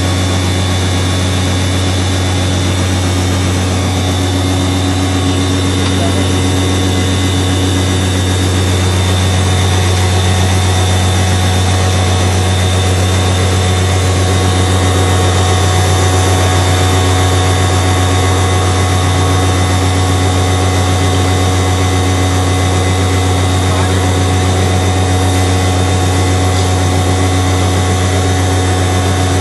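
Electric mini floor mill running steadily under load as dried red chillies are fed into it: a loud, unchanging machine hum.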